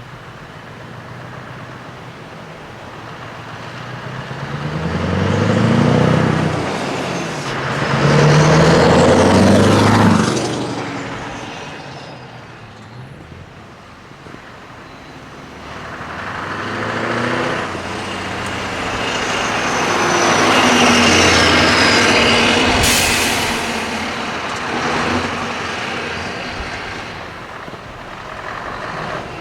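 Scania V8 trucks with open side pipes driving past one after another, their engines loud and deep. Two main passes build up and fade, the engine pitch rising and falling as they go by. A short sharp hiss comes about two-thirds of the way through.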